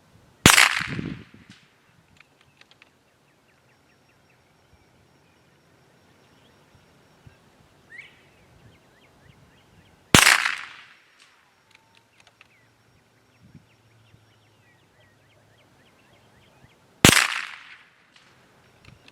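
.22 rifle firing three single shots: one about half a second in, one about 10 seconds in and one about 17 seconds in, each a sharp crack with a short fading tail.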